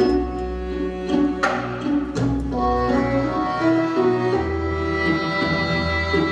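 Dance-theatre music with sustained bowed string notes over a deep low drone, with two sharp percussive strikes in the first few seconds.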